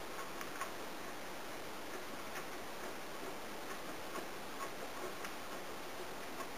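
Cheese being grated on a stainless steel box grater: faint, short scraping strokes at an uneven pace of about one or two a second, over a steady hiss.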